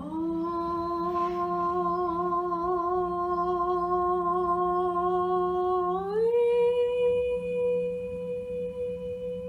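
A woman's voice toning a wordless sustained note with a slight waver, then gliding up about six seconds in to a higher note and holding it: channeled 'light language' tones.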